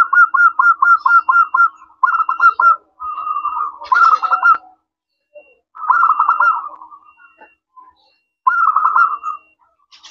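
Zebra dove (perkutut) singing: phrases of rapid, stuttering coos, about five of them with short pauses between, the last about three-quarters of the way in.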